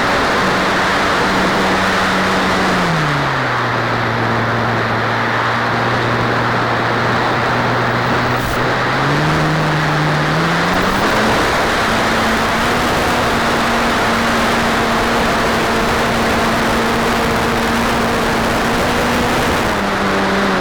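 Motor hum of an FPV remote-controlled aircraft under a steady rush of air noise. The motor's pitch drops about three seconds in, rises again around ten seconds, and dips once more near the end as the throttle changes.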